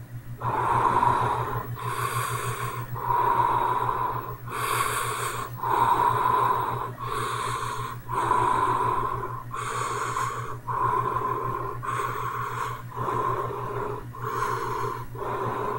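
A person breathing heavily in and out, about one breath a second, done as a scary sound effect; a steady low hum runs underneath.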